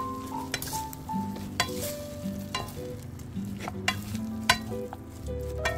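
Wooden spoons tossing dried pollack strips in thick red chili-paste sauce in a metal pan: sticky stirring and scraping, with about four sharp clacks of wood on the pan, over soft background music.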